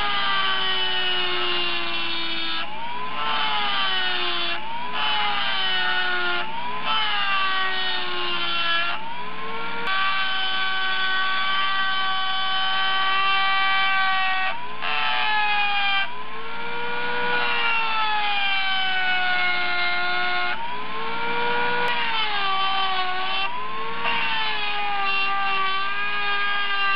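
Handheld electric rotary tool whining at high speed as its small grinding bit cuts into the exhaust port of a Mazda 13B rotary engine's rotor housing. The pitch sags each time the bit bites into the metal and climbs back as the pressure eases, over and over.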